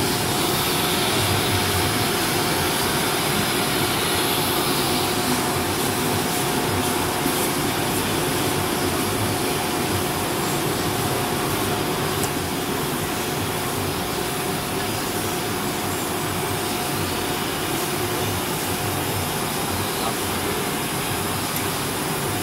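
MISSILECNC M5S CNC router's spindle running with a steady whine over a steady machine din as its gantry works over a board on the table.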